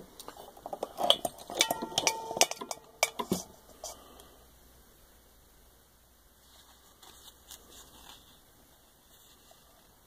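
Sharp metallic clicks and clinks with a brief ringing note, from about half a second to three and a half seconds in, as parts of an antique sewing machine and the work are handled; then only faint small handling sounds.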